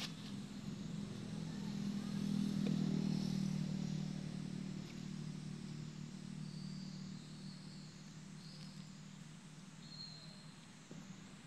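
Engine drone of a passing motor vehicle, growing louder about two to three seconds in and then slowly fading, with a few faint high chirps over it.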